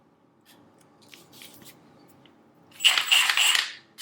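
Milwaukee M18 FUEL 2767 cordless 1/2-inch impact wrench run briefly with no load: a short whine of under a second, about three seconds in, after a few faint handling clicks.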